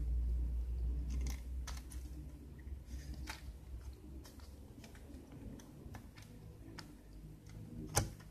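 Scattered light clicks and taps of desoldering work on a through-hole circuit board, as the soldering tools touch the board, with one sharper click near the end. A low hum fades out in the first second or two.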